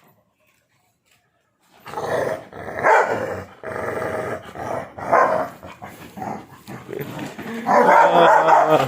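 Dogs growling and barking in rough play, starting about two seconds in and getting louder near the end.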